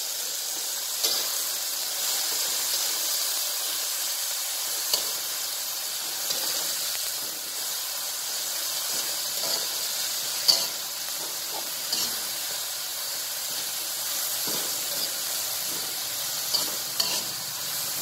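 Chopped tomatoes, chillies, shallots and garlic sizzling steadily in hot oil in a metal wok, with a metal spatula scraping and clicking against the pan now and then, the sharpest click about ten seconds in.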